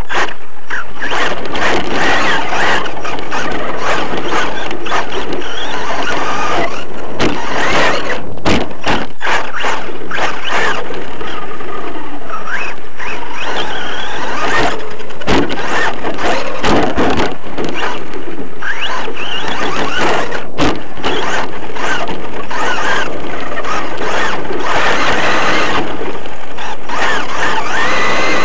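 Onboard sound of a radio-controlled off-road car racing on a dirt track. The drivetrain whines up and down with the throttle, under constant rattling and sharp knocks from the chassis over bumps and jumps.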